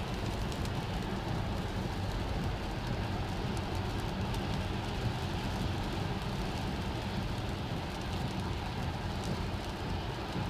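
Steady road and tyre noise of an electric Tesla Model S at highway speed on a rain-soaked road, heard from inside the cabin, with rain and spray hitting the car and scattered light ticks of drops.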